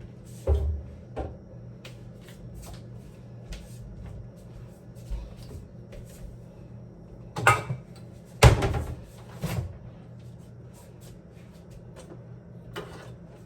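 Household knocks and clatters, like doors or containers being opened, shut and handled, about six times with the loudest a little past the middle, over a steady low appliance hum.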